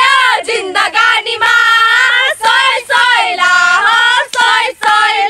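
A group of young women singing a song together in high voices, with long held notes and short breaks between phrases.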